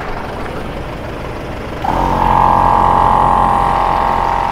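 Steady mechanical running noise, then about two seconds in a T-Max 12-volt portable air compressor switches on and runs with a loud, steady whine over a low hum, pumping air into a 4x4's tyre.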